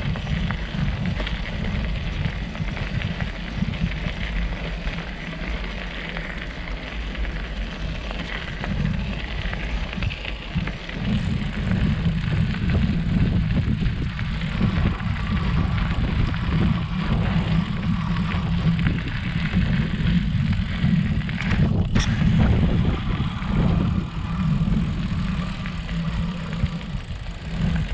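Mountain bike rolling along a dirt forest trail, heard through a handlebar-mounted action camera: a steady rumble and rattle of tyres and frame, louder about halfway through, with one sharp click near the end.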